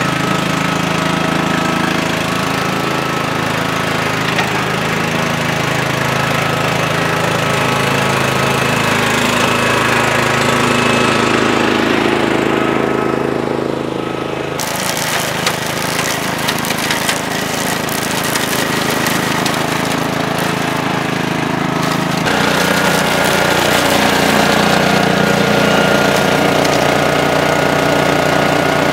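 A mower's engine running steadily. Its note and rattle change abruptly about 15 seconds in and again about 22 seconds in.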